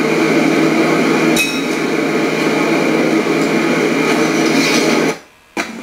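Hydro Tek hot water pressure washer running, a loud, steady mechanical noise with a fixed hum and clatter from the machine. It cuts off abruptly about five seconds in, followed by a single click.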